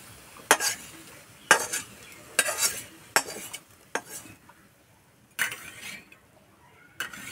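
Metal spatula scraping fried garlic, ginger, onion and green chillies in mustard oil out of a kadai into a steel plate: a series of short, sharp metal scrapes and clinks, roughly one a second, with a quieter gap a little past the middle.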